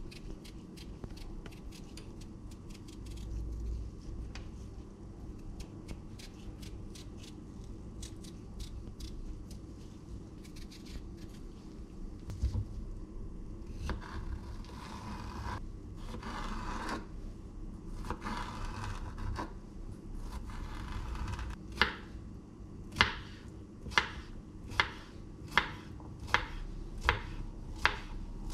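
A kitchen knife paring and scraping the skin off a green vegetable, with small clicks and rasping strokes. Then the knife chops it on a wooden cutting board: sharp, steady knocks a little faster than one a second.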